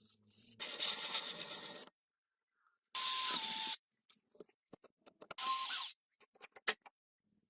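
A small power tool run in three short bursts of about a second each, the later two with a steady motor whine, and light clicks and taps of handling between them.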